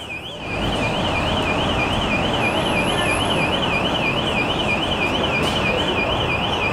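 Electronic alarm tone warbling rapidly up and down, about four times a second, over a steady rushing background noise that comes up about half a second in.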